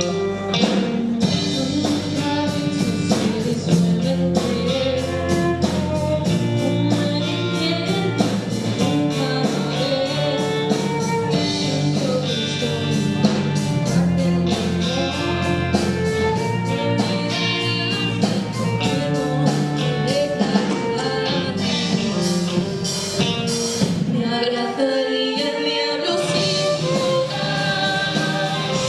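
A band playing live, with a singer over guitar and a steady drum beat.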